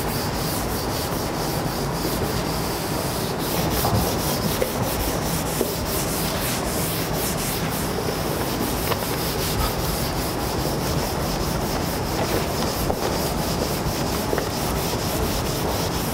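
Chalkboard being erased: an eraser rubbed across the blackboard in a continuous run of quick back-and-forth strokes.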